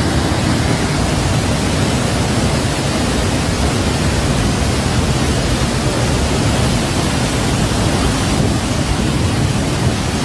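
Mud-laden water jetting from a dam's bottom outlet as silt is flushed out of the reservoir: a loud, steady rushing noise with a heavy low rumble.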